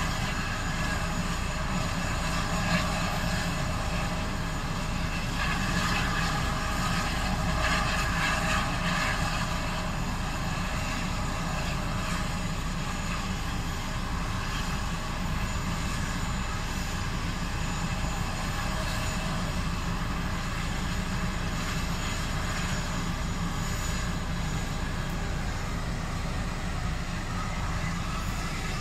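Air ambulance helicopter running on the ground with its rotor turning, a steady turbine whine over the rotor noise, swelling a little a few seconds in, heard from inside a car.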